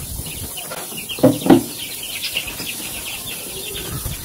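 Chickens clucking, two loud clucks about a second in, over a steady run of high chick peeps, with a knife chopping herbs on a wooden cutting board.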